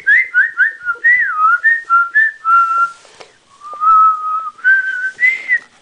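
A person whistling a tune. It opens with a quick run of short, sliding notes, then moves to a few longer held notes.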